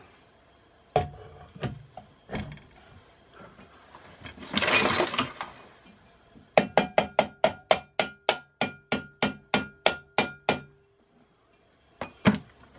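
Rubber mallet tapping the metal rotor of an LG direct-drive washing machine motor to drive its bearing onto a 22 mm shaft. A few single knocks, then a quick even run of about seventeen taps, roughly four a second, with the rotor drum ringing under them, and two last knocks near the end.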